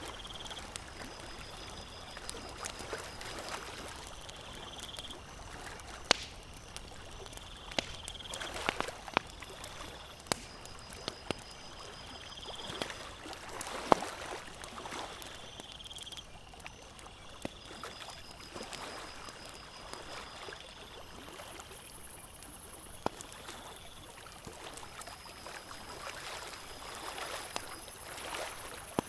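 Campfire crackling, with scattered sharp pops, over the splashing of small lake waves lapping in gentle swells.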